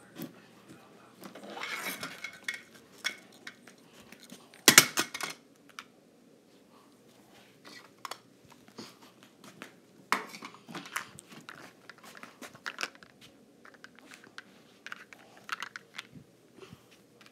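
Handling noise: scattered clicks, taps and rustling, with one loud knock about five seconds in.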